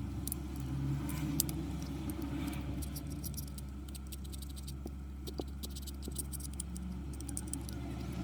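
Faint, scattered clicks and ticks of a blade working broken iPhone 8 back glass off the frame, over a steady low hum.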